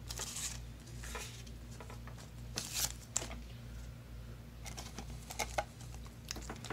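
Foil Yu-Gi-Oh! Toon Chaos booster pack wrappers crinkling in short, scattered rustles as a pack is taken from the box and handled.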